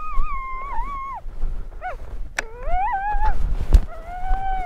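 A wild dog, shot and down, crying out in long wavering howls that rise, hold and fall, four times, one of them a short yelp about two seconds in. A single sharp click sounds between the cries.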